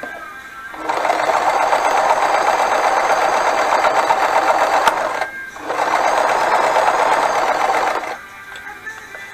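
Frister & Rossmann 502 semi-industrial sewing machine running and stitching through fabric. It starts about a second in, runs for about four seconds, pauses briefly, runs again for about two and a half seconds, then stops.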